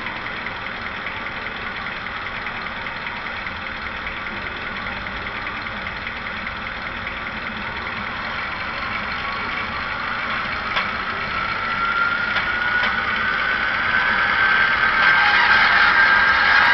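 Model locomotive sound decoder playing a diesel engine running, through a small speaker. About halfway in, a whine starts and rises slowly in pitch, getting louder toward the end.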